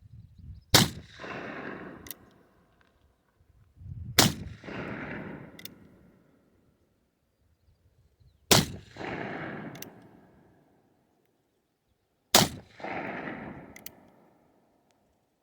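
Four shots from a .44 caliber Remington New Model Army black powder revolver, fired about four seconds apart. Each shot is followed by a rolling echo lasting about a second and a half, then a faint sharp click.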